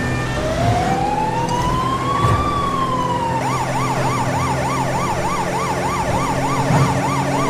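Police car siren: one slow wail rising and then falling, switching about three and a half seconds in to a fast yelp of about three to four up-and-down cycles a second, over the steady low running of a car engine.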